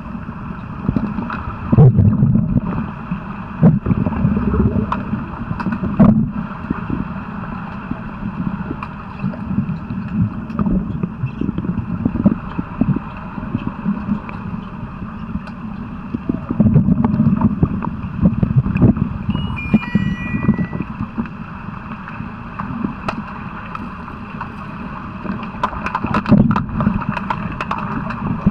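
Underwater sound of an underwater hockey game, heard through a submerged camera: a steady low rush of water and bubbles, broken by frequent knocks and clicks from play on the pool floor. A short run of high beeps comes about two-thirds of the way in.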